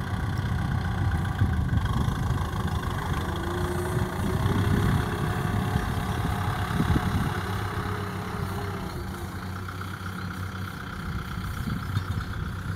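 Kubota M6040SU tractor's diesel engine idling steadily, with wind rumbling on the microphone now and then.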